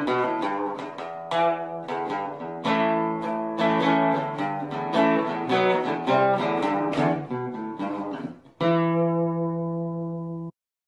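Outro music of guitar picking a slow melody, ending on a chord held for about two seconds that then cuts off suddenly.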